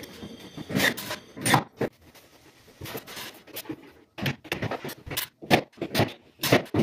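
Irregular knocks, taps and scrapes of a white cabinet panel being pushed and adjusted by hand into place on top of a wall-hung wooden kitchen cabinet, louder and more frequent in the second half.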